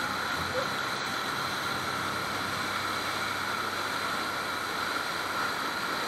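Steady rush of whitewater in a river rapid churning around an inflatable raft.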